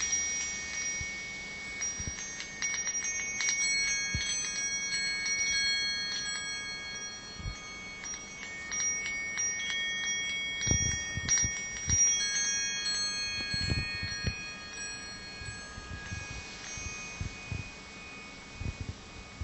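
Homemade wind chime of brass tubes ringing, struck irregularly so that several high, long-sustained tones overlap and slowly die away. A few short, dull low thumps come in during the second half.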